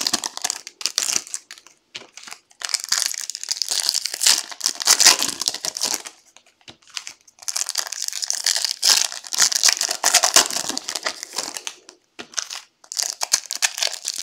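Foil trading-card pack wrappers crinkling and tearing as they are pulled open by hand, in bursts with a few brief pauses.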